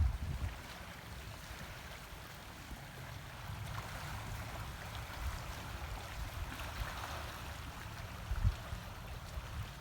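Wind buffeting the microphone in a steady low rumble over an even rushing hiss, with one brief thump about eight and a half seconds in.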